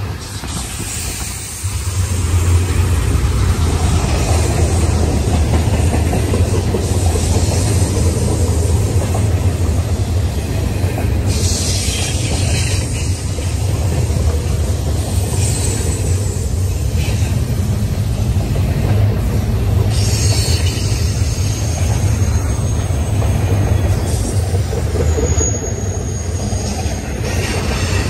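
Double-stack intermodal well cars rolling past close by: a steady, loud rumble of steel wheels on rail, growing louder about two seconds in. A thin high wheel squeal rises near the end.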